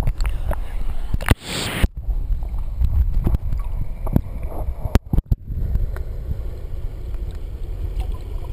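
Creek water sloshing and splashing against a handheld camera's microphone as a swimmer floats, with a low rumble, frequent knocks from handling, and the sound cutting out abruptly twice.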